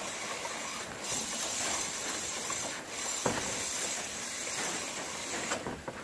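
Motorcycle front disc brake pads rubbing on the rotor as the wheel is spun by hand: a steady scraping hiss with a few brief catches. The drag comes from sand and grit packed onto the pads, typical in the rainy season.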